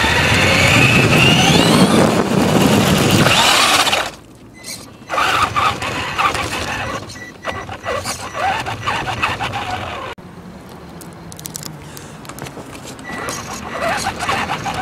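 Traxxas Slash 2WD RC truck's electric motor whining up in pitch as it accelerates, with tyre and chassis rumble over brick paving, heard from a camera riding on the truck. It cuts back suddenly about four seconds in, then runs on in shorter, quieter spurts with scattered knocks from the bumpy pavers.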